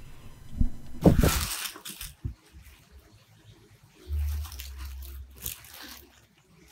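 Crinkling and rustling of paper packaging and a plush dog toy being handled, loudest in a short burst about a second in. A low rumble of handling noise follows about four seconds in.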